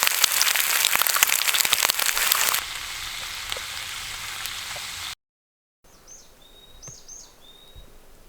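Dense crackling hiss, loud for about two and a half seconds, then quieter. After a brief cut to silence comes a faint outdoor background with several short bird chirps and whistles.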